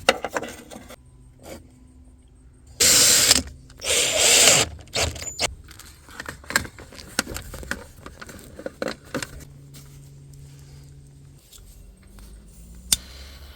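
Hands working on wiring and connectors: scattered clicks and rattles, with two loud rasping bursts of about half a second each around three and four seconds in, and a sharp click near the end.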